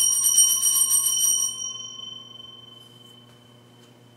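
Altar bell (sanctus bell) shaken in rapid, even strokes at the elevation of the chalice during the consecration. It stops about a second and a half in, and its ringing dies away over the next second, leaving a faint low hum.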